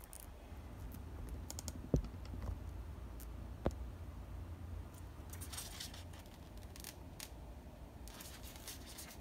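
Multimeter test probe tips tapping and scraping against LED leads on a plastic breadboard: two sharp clicks about two and three and a half seconds in, then faint scratching, over a low steady hum.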